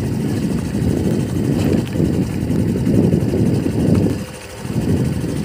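Motorcycle riding along a rough gravel road: the engine runs under a loud low rumble that swells and dips, easing briefly about four seconds in.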